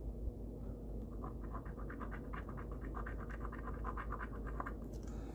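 Instant scratch-off lottery ticket being scratched off in quick, rapid back-and-forth strokes, about ten a second, from about a second in until shortly before the end.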